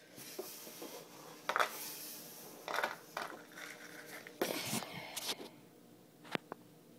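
Handling noise: a series of short scrapes and light knocks, as the phone and plastic containers are moved about, with a sharp knock near the end.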